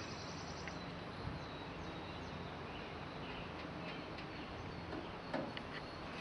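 Faint steady outdoor background noise, with a few faint bird chirps and a couple of light knocks, about a second in and again near the end.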